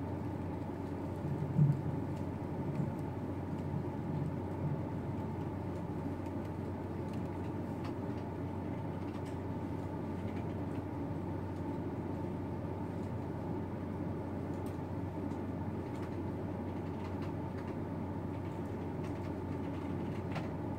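Steady low room hum, with a brief louder sound about two seconds in and a few faint clicks.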